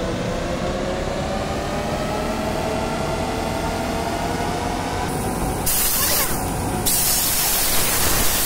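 Steady workshop hum with a faint, slowly rising whine, joined about five seconds in by loud hissing of compressed air, first in a short burst and then continuously.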